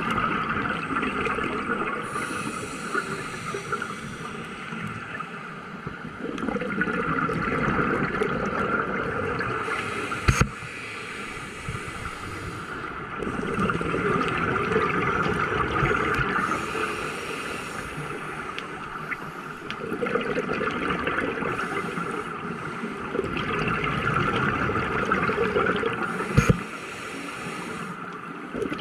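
Scuba diver breathing underwater through a regulator: exhaled bubbles gurgling in long surges every few seconds. Two sharp clicks, one about ten seconds in and one near the end.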